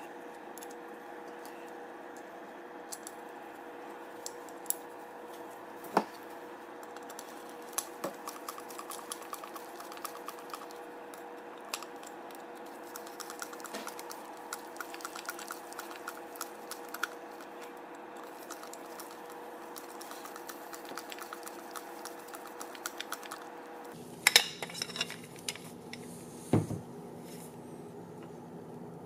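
Light clicks and taps of small screws, a screwdriver and frame parts being handled while parts are screwed loosely onto a quadcopter frame, with a run of fine rapid ticks in the middle and a sharper cluster of clicks near the end, over a faint steady hum.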